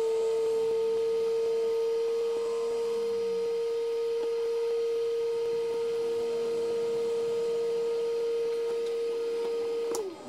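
Hot air rework station blowing on the phone board, giving a steady whining tone that stops about ten seconds in with a short drop in pitch. A few small clicks follow.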